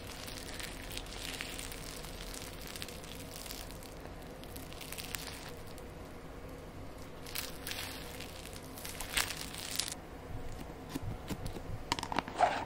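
Sticky slime being kneaded and stretched in the hands: soft, irregular crackling and sticky pulling sounds, with a few louder crackles in the second half.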